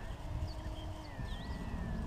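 Electric motor and propeller of a small RC aerobatic plane whining faintly in flight, its pitch dipping and then rising a little past a second in as the throttle changes. Faint bird chirps and wind rumble on the microphone.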